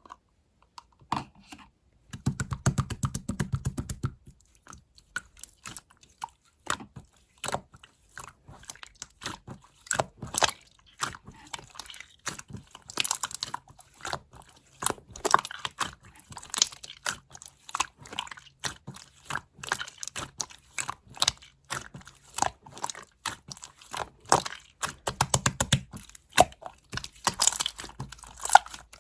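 Clear slime being squished and stretched, making an irregular stream of sticky clicks and small pops. A low rumble comes in a couple of seconds in and again near the end.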